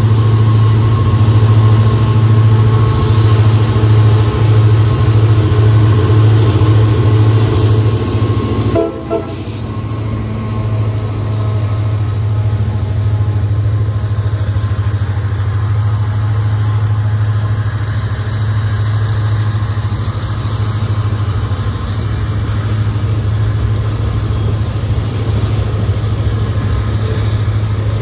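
Diesel freight locomotive passing close by with its engine running loudly, followed about nine seconds in by a long string of freight cars rolling past, their wheels making a steady rumble on the rails.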